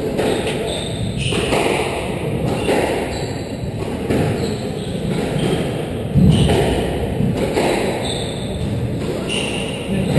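Squash rally: the hollow rubber ball is struck by rackets and thuds off the court walls roughly once a second, one shot after another.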